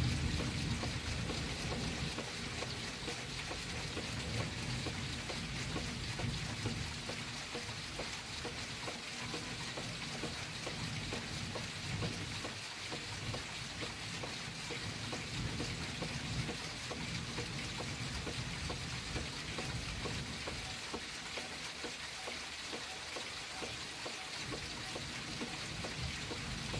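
Steady heavy rain falling during a thunderstorm, a continuous hiss and patter. A low rumble fades out in the first second or two.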